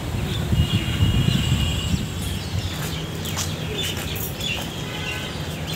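Small birds chirping in short bursts over a steady low rumble, with a few light ticks.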